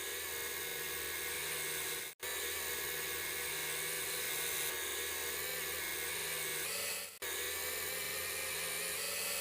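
Woodturning lathe running with a tool cutting the spinning wood: a steady high whine and hiss. It breaks off abruptly for an instant about two seconds in and again about seven seconds in.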